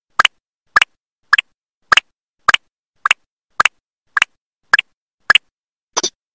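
Cartoon sound effect: a steady run of short, soft clicks, a little under two a second, with a quick double click near the end.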